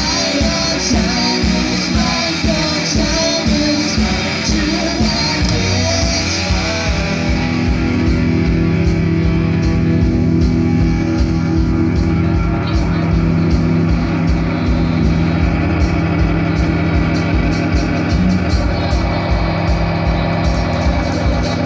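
Live psychedelic indie rock band playing: electric guitars, bass guitar, drums and keyboard/synthesizer. A busy full-band passage gives way, about a third of the way in, to long held low notes over a steady drum beat.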